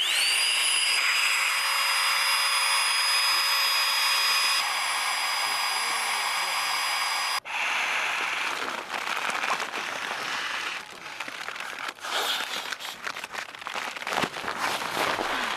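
Small handheld electric air pump spinning up and running with a steady high whine as it inflates a sleeping pad, cutting off suddenly about seven seconds in. After that comes uneven rushing and crinkling from the pad's fabric being handled.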